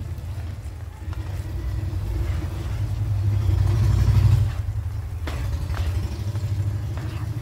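A spatula stirring thick gravy in a steel pan. Under it is a low rumble that swells to its loudest about four seconds in and then eases.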